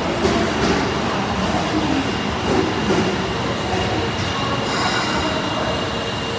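Tanimachi Line 22 series subway train running, with steady rail noise and a few knocks in the first three seconds. A brief high-pitched squeal comes about five seconds in.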